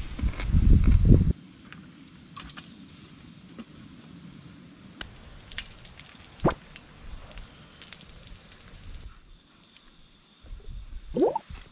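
Cartilage grilling on a net over a fire pit, sizzling and popping loudly for the first second or so. After a sudden drop only scattered sharp pops and crackles of the fire remain, with a short rising squeak near the end.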